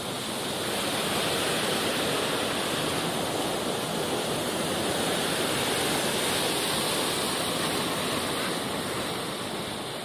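Fast, turbulent floodwater rushing and churning past the causeway in a steady, even rush that grows slightly louder about a second in.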